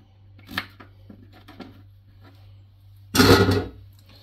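A kitchen knife cutting raw pumpkin on a plastic cutting board: a few light taps, then a louder scrape and clatter of pieces about three seconds in.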